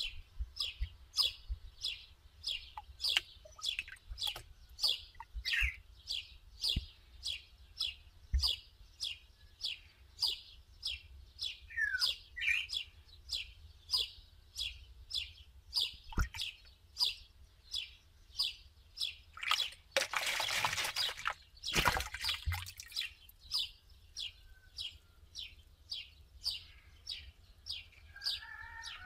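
A small bird chirping steadily in the background: one short high chirp about twice a second, over and over. About twenty seconds in, a two-second rush of noise.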